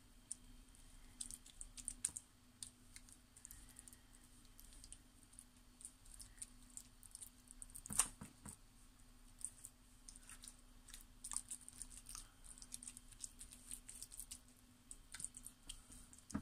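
Faint, irregular soft clicks and wet taps of a silicone basting brush dabbing herb marinade onto whiting fillets on a tray, with one sharper click about eight seconds in. A faint steady hum runs underneath.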